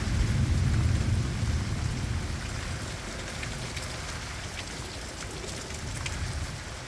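Heavy rain falling steadily, with a low rumble of thunder that fades away over the first few seconds; a few sharp drip taps later on.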